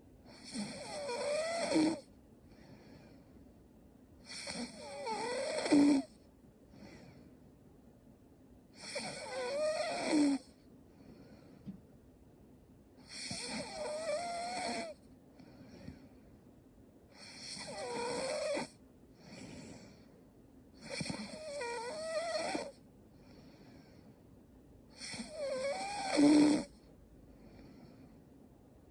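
Woman snoring in her sleep: seven snores, about one every four seconds, each growing louder with a wavering pitch and then stopping abruptly.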